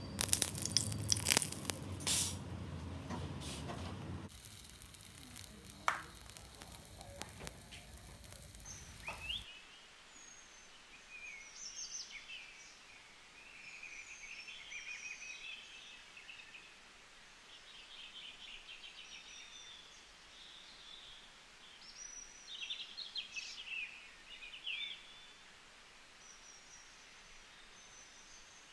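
Small birds chirping and twittering in short repeated phrases through most of the stretch, over a low background hiss. It opens with a few seconds of louder clattering and noise that drops away about four seconds in.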